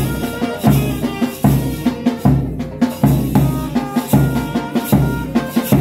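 Traditional temple band playing: large barrel drums beat a steady rhythm, about one stroke every three-quarters of a second, under long curved brass horns blowing held notes that change pitch.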